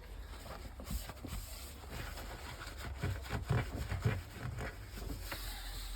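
Dishwasher rack being handled and pulled out: an irregular run of light knocks and rattles, the two loudest around three and a half and four seconds in.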